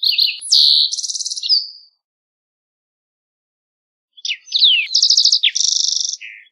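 Green-tailed towhee singing two song phrases, each a few quick slurred notes followed by rapid trills. The first phrase ends about two seconds in, and the second begins about four seconds in.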